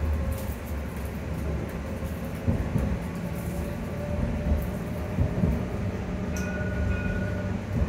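Edinburgh tram, a CAF Urbos 3, heard from inside the saloon while running: a steady low rumble of wheels and traction motors with a steady motor tone. About six seconds in, two higher steady tones sound together for just over a second.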